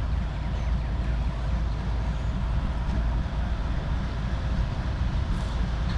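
Low, steady rumble of diesel freight locomotives approaching a grade crossing.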